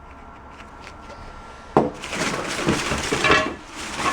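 A sharp knock nearly two seconds in, then a couple of seconds of clattering and rustling as objects are handled and moved about.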